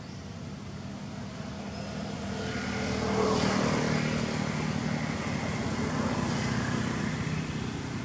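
A motor vehicle engine passing by: a steady low engine note that grows louder to a peak about three seconds in, then slowly eases off.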